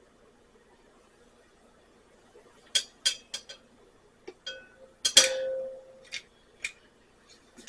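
Glass and small hard objects clinking and tapping as they are handled: a quick cluster of taps about three seconds in, then one louder clink about five seconds in that rings briefly, followed by a few lighter taps.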